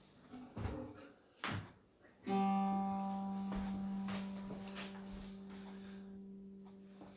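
Guitar: two brief knocks, then about two seconds in a single low note is plucked and left ringing, fading slowly.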